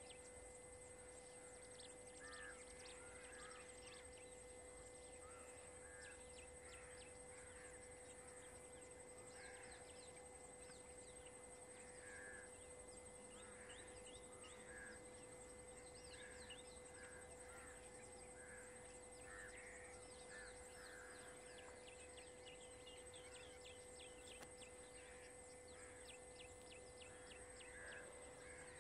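Quiet forest ambience: wild birds giving short calls and quick chirps again and again, over a steady faint background hiss and hum.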